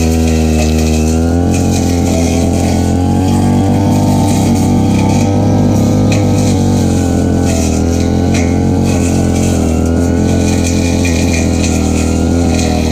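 Stihl FR3001 brush cutter engine revving up in the first second or so, then running at high speed with its pitch wavering as it cuts grass.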